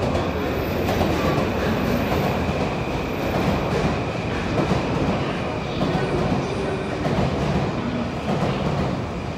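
A train running on rails: a loud, steady rumble with some clickety-clack.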